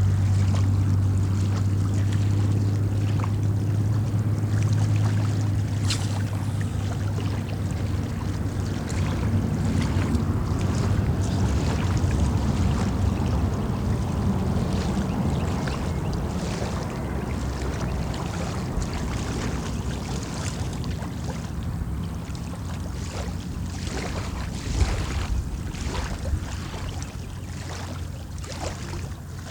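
Steady rush of water with wind buffeting the phone's microphone, under a low hum that fades away over the first half. Scattered light clicks and taps throughout.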